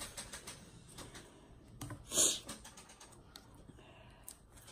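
Faint, irregular clicking of PlayStation controller buttons being mashed, along with light handling of a cardboard mailing tube. A short rustle comes about two seconds in.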